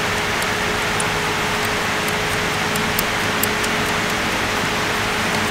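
Steady hiss-like workshop background noise with a constant hum, and a few faint light clicks about halfway through as small metal fittings are handled and seated on the diesel injectors.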